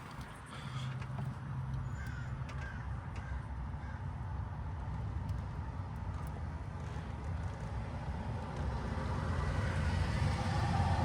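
A few harsh, crow-like bird calls over a steady low rumble of traffic. A vehicle grows louder near the end.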